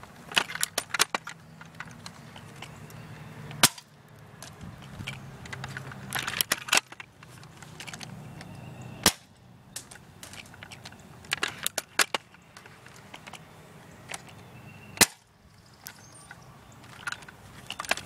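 A 575 FPS BB sniper rifle firing three single shots, each a sharp crack about six seconds apart, with clusters of smaller clicks and clatter between the shots.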